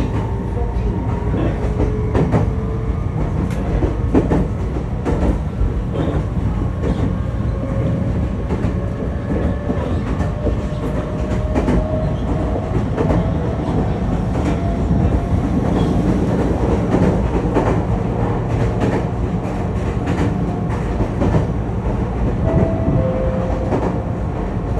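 Meitetsu commuter train heard from inside the passenger car while running: a steady low rumble with scattered rail-joint clicks, and a faint whine that slowly rises in pitch.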